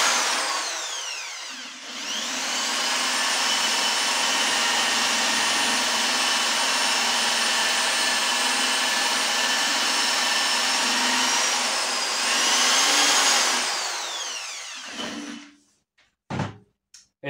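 Electric drill spinning a Scotch-Brite abrasive wheel against a shock-absorber body: the motor slows at the start, speeds back up and runs steadily with a high whine, then spins down near the end, followed by a couple of short knocks. The whine is a noise from the drill that its owner cannot identify.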